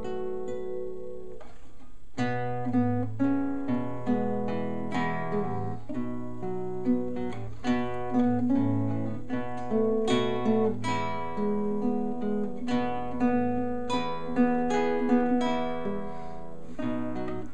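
Classical nylon-string guitar played with plucked notes and chords in a flowing tune, with a brief pause about two seconds in before the playing resumes.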